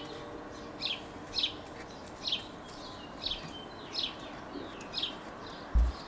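A songbird chirping, short high downward-sweeping notes repeated about once or twice a second. A low thump near the end.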